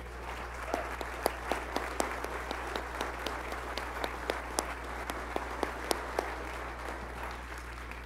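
Audience applauding: a dense patter of many hands clapping with sharper single claps standing out, thinning out near the end.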